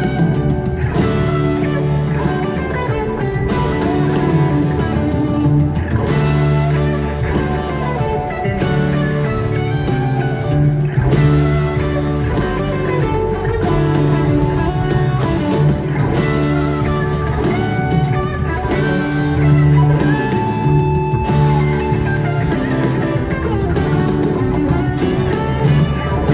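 Live jam-band rock music from a concert: electric guitar lines played over a repeating low bass figure, with the full band playing on without a break.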